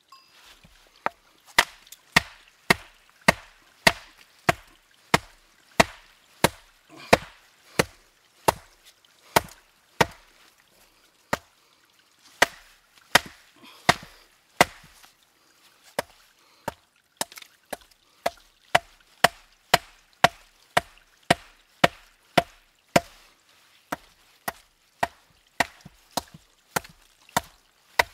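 Hammer striking a rock over and over to break it open, sharp hard knocks about two a second, with a couple of short pauses.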